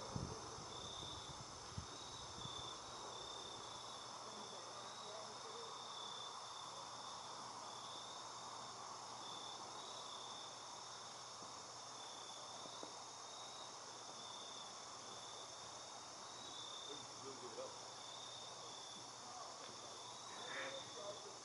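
Insects trilling in a steady, high-pitched chorus that pulses on and off, over faint outdoor hiss.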